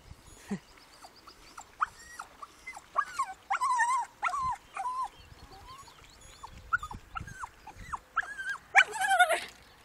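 Small dog whining repeatedly in short, high, wavering calls, with louder bursts about four seconds in and again near the end.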